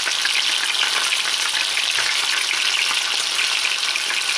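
Pieces of burbot frying in oil in a pan, with a steady, dense crackling sizzle.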